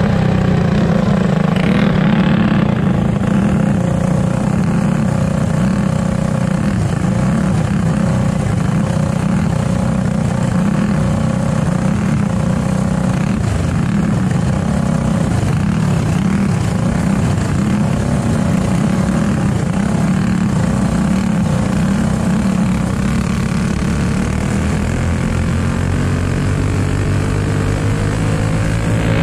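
Racing kart's single-cylinder four-stroke clone engine running hard, heard from on the kart. Its pitch wavers as the kart slows and picks up speed, and it climbs near the end under acceleration.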